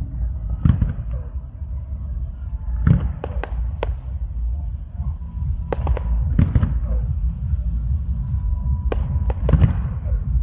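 Fireworks display: repeated booming shell bursts, some coming in quick clusters of sharp cracks, over a continuous low rumble.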